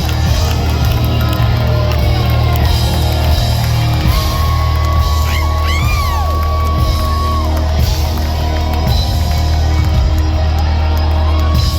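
Live hard-rock band playing loud, with a heavy low end and long held high notes that bend and waver about halfway through.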